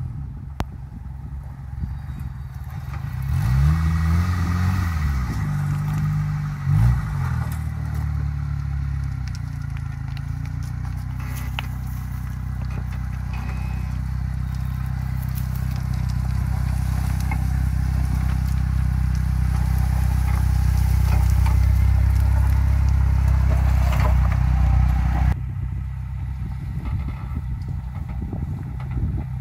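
1988 Suzuki Vitara's engine working off-road on a steep dirt slope. It revs up and down several times, then holds a steady, strained drone that grows louder, with scraping and crackling over it. It cuts abruptly to a quieter engine sound near the end.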